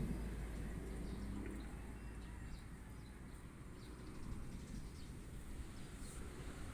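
Quiet outdoor ambience: a low rumble of wind on the microphone with faint, scattered bird chirps.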